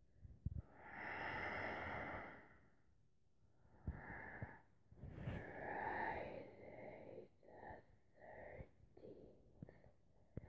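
Heavy, wheezy breathing close to the microphone through a plastic hockey mask. One long exhale comes first, then a run of shorter breaths that quicken into short puffs about twice a second near the end.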